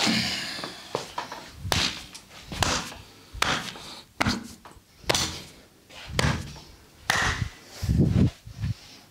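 Hands striking a person's body in a percussive massage, a series of sharp slaps and thuds a little under a second apart.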